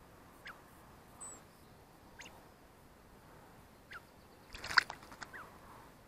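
An American robin splashing briefly in a shallow bird bath about five seconds in, the loudest sound, among a few short, sharp, falling bird chirps that come every second or two.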